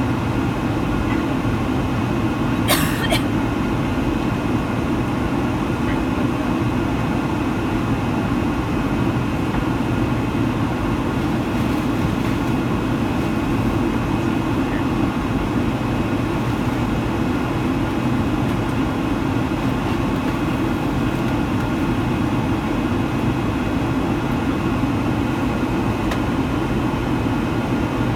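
Steady engine and air noise inside the cabin of a Boeing 757-200 on approach, from its Pratt & Whitney PW2037 turbofans, with a few faint steady tones above the low rush. A brief double click about three seconds in.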